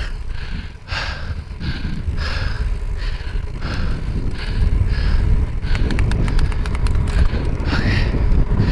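Wind buffeting the microphone on a bicycle coasting downhill, growing louder as it picks up speed, with the rider breathing hard and a brief run of quick ticks about six seconds in.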